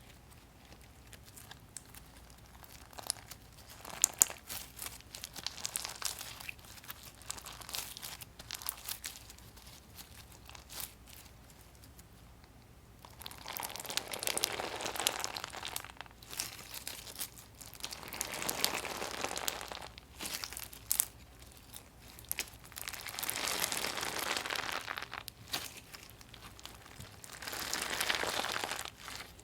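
Gritty, crunchy textured slime being worked by hand: scattered crackles and pops at first, then, from about halfway, four swells of dense crackling, each a second or two long.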